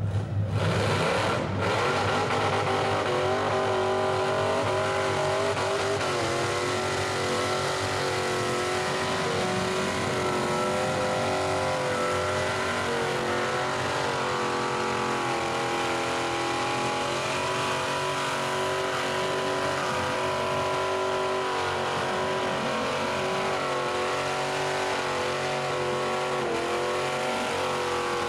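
Old Daimler sedan doing a burnout: its engine is held at high revs, the note wavering a little, over the hiss of the rear tyres spinning and smoking. The revs climb in the first second or two, then stay up.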